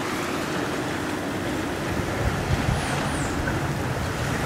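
Wind rumbling on the microphone over the wash of the sea, growing gustier about halfway through. Two faint high chirps come close together about three seconds in.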